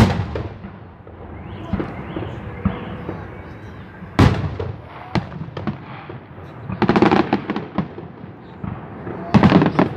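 Fireworks salute: shells bursting with a sharp bang right at the start and another about four seconds in, then clusters of rapid crackling bursts near seven and nine and a half seconds.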